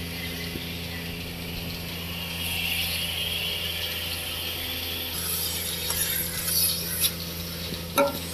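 Milking-parlour machinery running: a steady hum from the milking machine's vacuum system, with a hiss that swells in the middle and a few sharp clicks, the loudest about eight seconds in.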